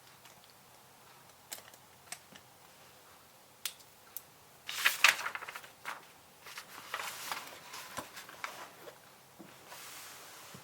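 Typing on a computer keyboard: a few scattered key clicks, then a fast run of typing about five seconds in, the loudest part, trailing off into irregular clicks.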